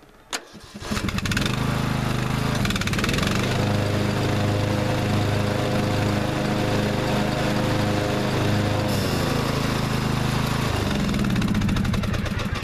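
A Husqvarna riding mower's engine is started about a second in and runs steadily. From about three seconds in a higher tone rises over it, holds, and falls away near eleven seconds, and the engine stops just before the end. This is the test run after the deck's electric-clutch tension spring was replaced.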